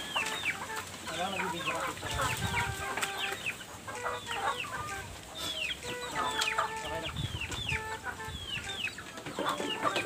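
Native chickens clucking and calling while being fed, many short high calls that slide down in pitch, repeated throughout.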